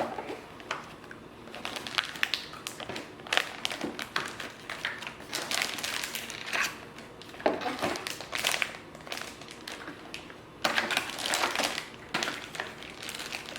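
Computer-part packaging being handled and opened: crinkling and rustling with scattered clicks and taps, the busiest stretches about halfway through and again about eleven seconds in.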